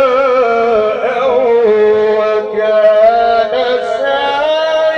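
A man reciting the Quran in melodic tajweed style into a microphone, drawing out long ornamented notes that waver up and down in pitch without a break.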